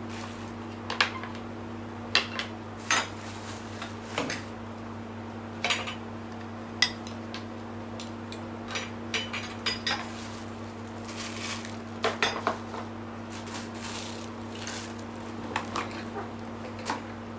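Baby rocker parts being handled and fitted during assembly: irregular sharp clinks and knocks of hard parts against each other, over a steady low hum.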